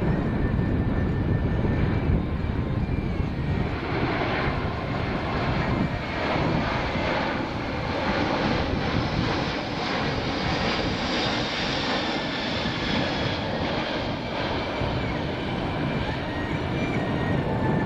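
Jet noise from a Boeing C-17 Globemaster III's four Pratt & Whitney F117 turbofan engines as the aircraft flies a tight minimum-radius turn. It is a steady, heavy rumble that brightens toward the middle, where a faint high whine slowly falls, then settles back.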